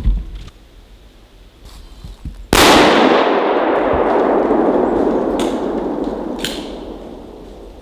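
A single gunshot about two and a half seconds in, its echo rolling on and slowly fading over several seconds. Two brief sharp clicks come during the fading tail.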